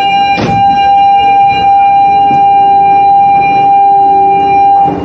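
Ship's alarm sounding one steady, unbroken high tone for an emergency drill, cutting off suddenly near the end. A short bump about half a second in.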